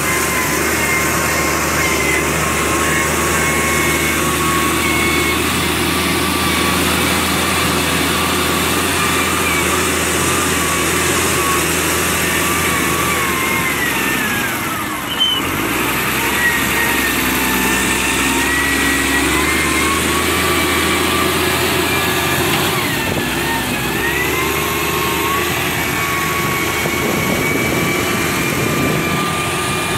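SDLG wheel loader's diesel engine running hard and revving as it digs and dumps sand, with a drivetrain whine that sags in pitch and recovers about halfway through and again about three quarters of the way in.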